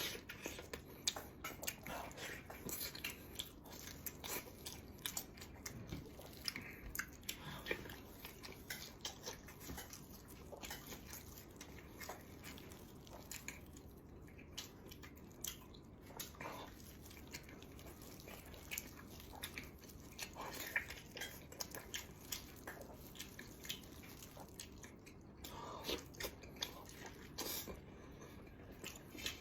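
Close-up eating sounds: someone chewing steadily, with irregular soft wet smacks and small clicks of the mouth, a few louder clusters along the way.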